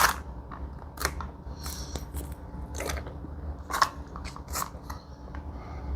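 Foil ration pouch crinkling and crackling as it is handled, in a string of sharp separate crackles, the strongest about one, three, four and four and a half seconds in.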